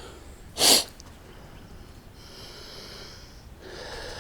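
A person's sharp nasal blast of breath, like a sneeze, once and loud about half a second in, lasting a fraction of a second.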